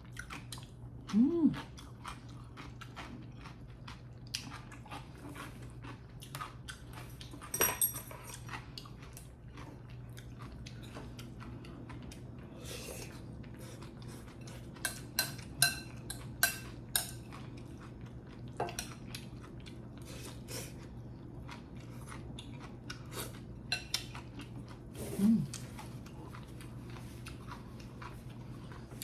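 Close-miked eating: chewing and mouth sounds with utensils clicking against bowls and dishes throughout. One utensil strike rings out about 8 s in. Two short hums from the eater come about a second in and near the end.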